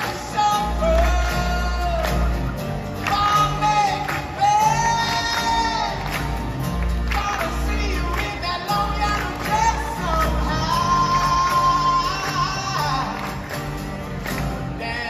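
Live band music in a large concert hall: several male voices singing together over acoustic guitars and a bass guitar.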